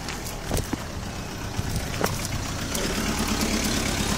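A motor vehicle's engine running, growing louder in the second half, with a few light knocks early on.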